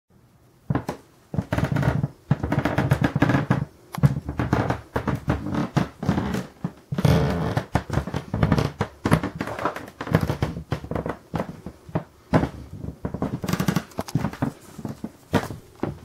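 Creaky wooden floorboards creaking under someone walking on them: a dense run of squeaky creaks, some drawn out, and sharp clicks, starting under a second in.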